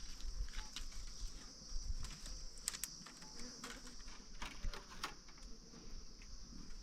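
Scattered light clicks and taps, thickest around the middle, over a steady high-pitched drone.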